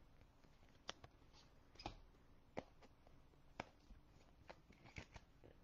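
Near silence with a few faint, short clicks and taps, about one a second.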